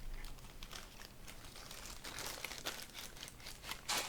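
Packaging crinkling and rustling as it is handled, in irregular crackles, with a louder sharp crackle near the end.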